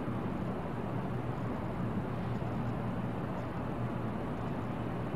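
Steady low background rumble with a faint hum and no distinct events.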